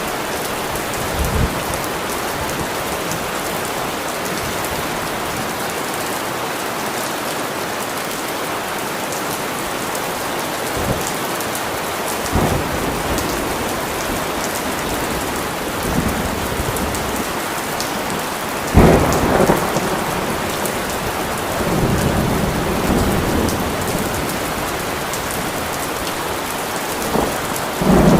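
Steady rain falling, with several rolls of thunder rumbling through it; the loudest thunderclap breaks sharply about two-thirds of the way in and rolls on for a few seconds.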